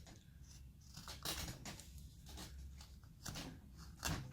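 Carving tool cutting into basswood: several short, faint scraping cuts about a second apart.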